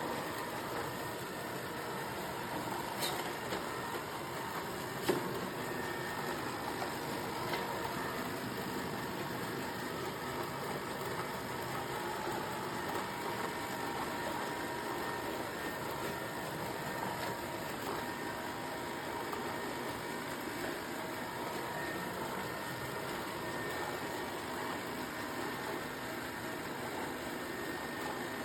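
Robot vacuum running with a steady motor hum and brush noise, with a few light clicks or bumps, the sharpest about five seconds in.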